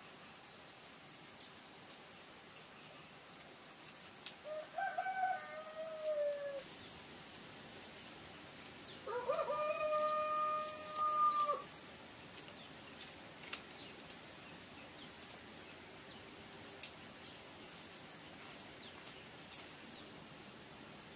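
A rooster crowing twice. The first crow comes about four and a half seconds in, and the second, louder one comes about nine seconds in, rising and then holding a long level note.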